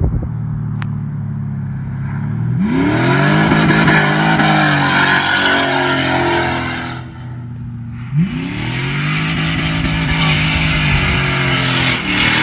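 Camaro F-body's engine revving up hard twice, about two and a half seconds in and again about eight seconds in. Each time it holds high for several seconds with a loud, rough hiss over the engine note, and it drops back to a steady low running note in between.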